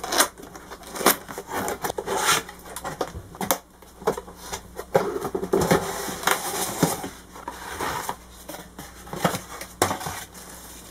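Cardboard box being opened by hand: flaps and a cardboard packing insert scraping and rustling in irregular bursts.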